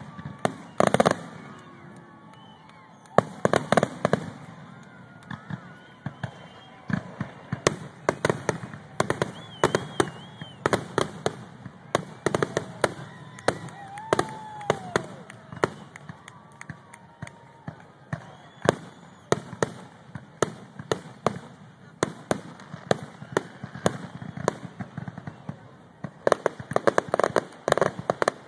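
Aerial firework shells bursting in quick succession, a long run of sharp bangs and crackles. Dense flurries of bangs come about a second in, around three to four seconds in, and again near the end. Spectators' voices are heard in between.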